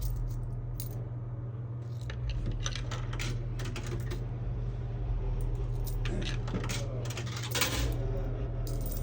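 Coins clinking and rattling in a vending machine's coin mechanism as jammed change is handled and cleared: a run of sharp metallic clicks starting about two seconds in, over a steady low hum.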